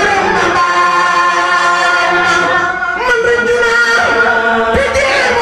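A choir of men's and women's voices singing unaccompanied in long held notes that slide from pitch to pitch, amplified through microphones.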